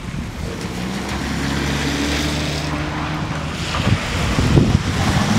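Distant diesel locomotive engine running with a steady low hum. Gusts of wind buffet the microphone, growing louder near the end.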